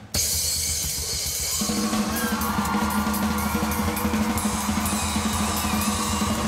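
Drum kit played hard, with snare, bass drum and cymbal hits, over a loud backing track whose sustained melody notes come in about a second and a half in.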